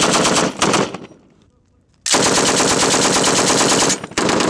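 M240B belt-fed machine gun firing in bursts: a short burst at the start, a brief second burst right after, then a long burst of nearly two seconds, and another burst beginning near the end.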